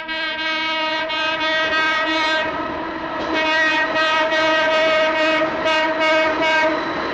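A train's horn held in one long, steady blast.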